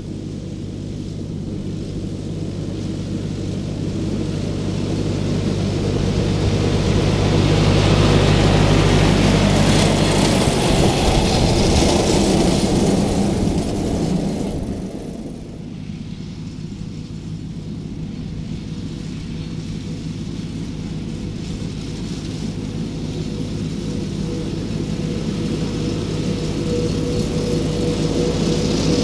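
A John Deere 1030 tractor's three-cylinder diesel running under load as it approaches with its PZ-Zweegers mower, growing louder until it passes close by about 8 to 14 seconds in, its pitch dropping as it goes. After that a tractor engine runs steadily and grows louder again near the end.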